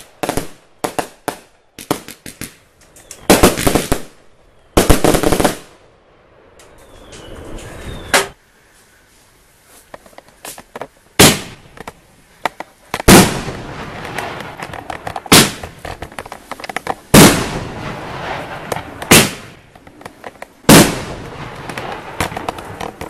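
Fireworks going off: a quick run of sharp bangs in the first few seconds, then a rising rush, then from about eleven seconds in loud bangs roughly every two seconds with crackling between them.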